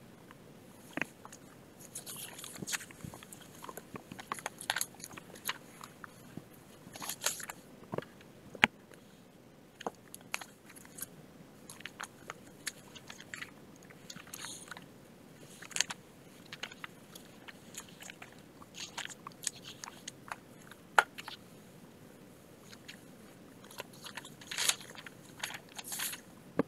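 Irregular crinkling and sharp clicks from a crumpled white object being handled close to the microphone, in scattered clusters with short quiet gaps.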